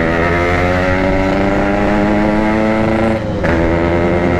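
Two-stroke single-cylinder Yamaha RX-King engine running at moderate, steady revs while ridden, dipping briefly about three seconds in before carrying on. The engine is freshly bored out and still being run in, so it is held back from high revs.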